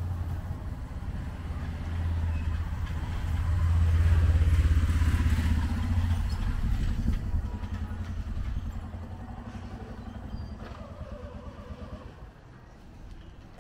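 Small engine of a three-wheeled auto-rickshaw passing close, growing to its loudest about four to five seconds in and then fading away.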